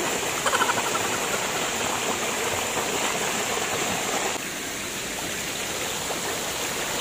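Shallow mountain stream rushing and splashing over smooth rock slabs in a steady rush of white water. It drops slightly in level about four and a half seconds in.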